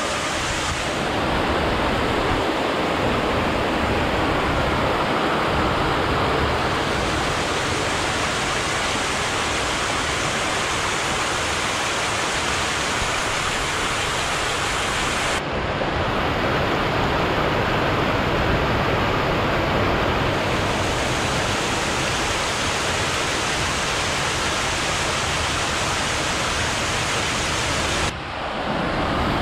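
Paddlewheel aerator churning pond water: its paddles beat the surface into a steady, loud rushing splash as it aerates the pond. The sound dips briefly twice.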